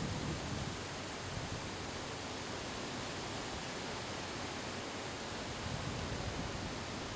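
Strong wind blowing through trees, a steady rush of rustling leaves, with faint low buffeting of wind on the microphone now and then.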